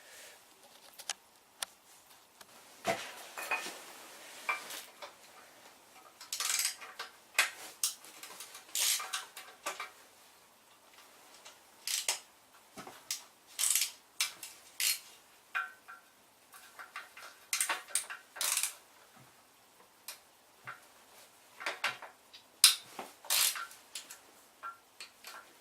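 Hand tools and small metal parts clinking and clattering in irregular short knocks, some ringing briefly, as they are handled and set down.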